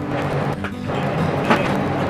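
Background music with steady low notes, and a short knock about one and a half seconds in.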